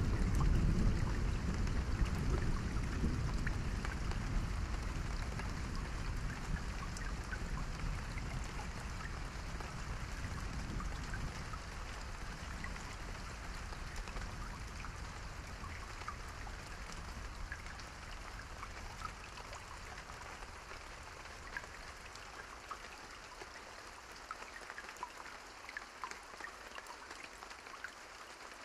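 Steady rain with scattered individual drops, under a low thunder rumble that fades away over the first ten seconds or so; the whole sound slowly grows quieter.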